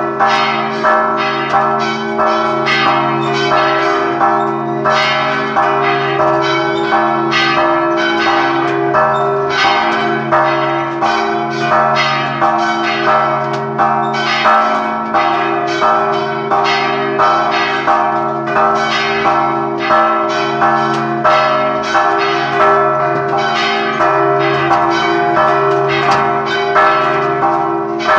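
A peal of several church bells ringing together, with strikes several times a second over their lingering hum.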